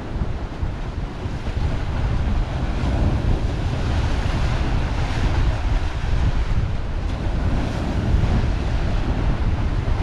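Baltic Sea waves washing and splashing against a breakwater of big stone blocks, with the surf hiss swelling louder around the middle. Wind rumbles on the microphone throughout.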